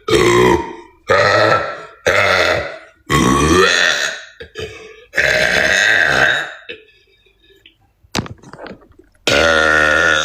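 A woman burping loudly, about six separate long burps in quick succession with brief gaps between them.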